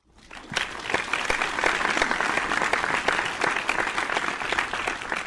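Crowd applause, many hands clapping together; it fades in at the start and fades out near the end.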